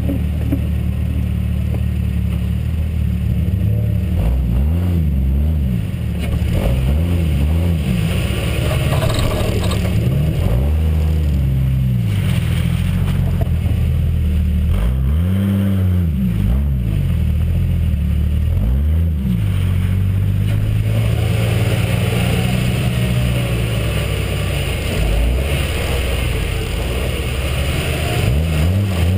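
Off-road 4x4 truck engine revving up and down while crawling along a muddy, rutted trail. Its pitch rises and falls every few seconds.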